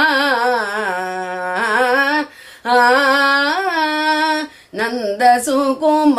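A woman singing a devotional bhajan solo, with no instrument, drawing out long, wavering melodic phrases. She breaks for a brief breath twice, a little over two seconds in and again past four seconds.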